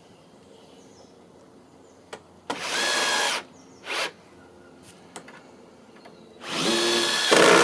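Power drill running in two bursts of about a second each, with a brief blip between them, likely driving screws into timber.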